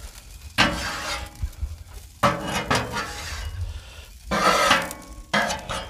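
Metal spatula scraping across a hot Blackstone steel griddle top in four strokes, about a second apart.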